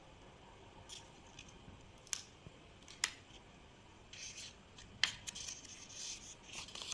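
Packaging being opened by hand: a few sharp snips or clicks, then bursts of crinkling wrapper rustle.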